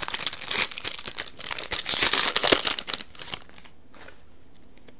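Foil Yu-Gi-Oh! booster pack wrapper crinkling loudly as it is torn open by hand for about three seconds, then only a few faint rustles.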